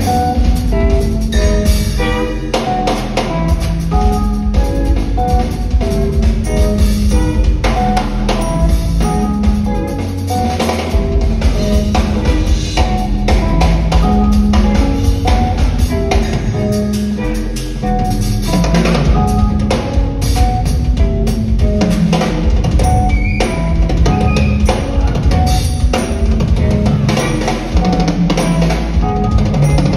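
Live jazz-fusion band playing: drum kit driving the groove under electric guitars and keyboards.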